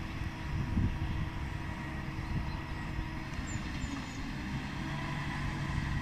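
Vervaet Hydro Trike self-propelled slurry injector working across a grass field, its diesel engine running steadily under a low rumble.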